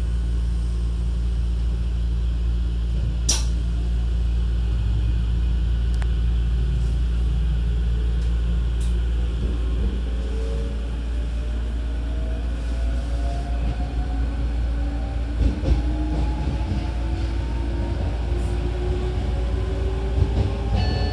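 E257 series 2000 electric train with Mitsubishi IGBT VVVF inverter. It stands with a steady low hum and a sharp click a few seconds in. About halfway through it starts to pull away, and the inverter and traction motors whine in several tones that rise slowly in pitch as it accelerates.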